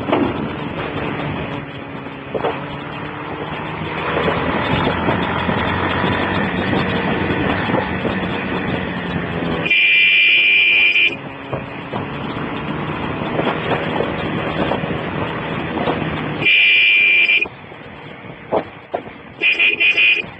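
Motorcycle running downhill with steady engine and wind noise, picked up by a mobile phone's microphone. A horn sounds in a long blast about halfway through, again in a second long blast a few seconds later, and in a few short toots near the end; the horn is the loudest sound.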